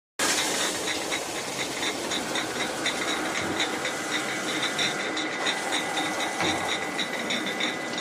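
Rotary glass bottle washing machine running: a steady hiss of water spray and machinery, with frequent light clinks as the glass bottles move through the star wheels and grippers.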